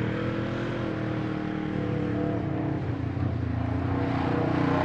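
An engine running steadily, its pitch holding level with only slight drift.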